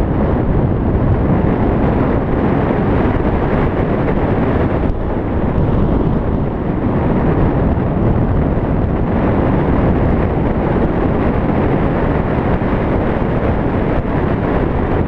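Onboard sound of a Porsche Boxster Spyder at speed on track: wind buffeting the microphone over engine and tyre noise, a steady low rumble with a brief dip about five seconds in.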